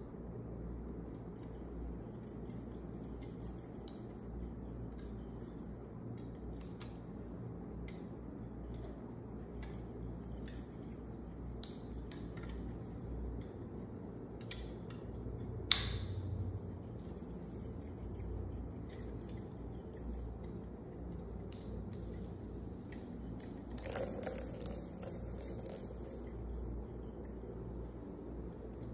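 High, bird-like chirping and warbling in phrases of a few seconds each, repeating about every seven or eight seconds. Scattered light clicks and taps come from kittens batting plastic toys, with one sharp knock about halfway through.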